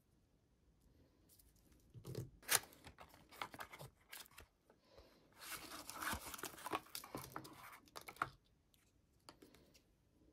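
Small cardboard box opened by hand: a few sharp clicks and rustles as the flaps are pulled open, then a few seconds of tearing and crinkling of thin paperboard, and a few light clicks near the end as paint tubes are taken out.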